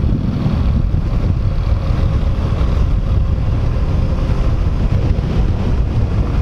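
Motorcycle riding steadily along a road: a steady low rumble of wind on the microphone mixed with the bike's engine running.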